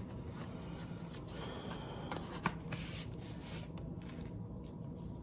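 Cardboard packaging and glossy photo cards being handled and slid apart: scattered rustling and scraping, with a sharp tap about two and a half seconds in.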